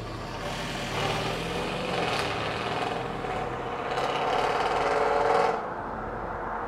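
Mercedes-Benz S550's twin-turbo V8, fitted with catless downpipes and a Stage 2 tune, accelerating away. Its exhaust note rises in pitch and grows louder, then drops off suddenly about five and a half seconds in.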